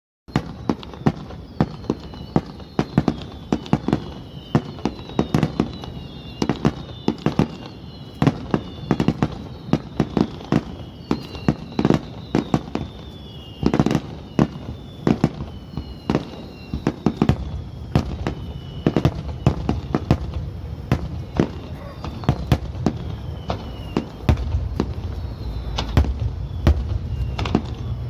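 Fireworks display: a dense, continuous volley of shell bursts banging several times a second, with high falling whistles running through it. The low rumble grows heavier over the last few seconds.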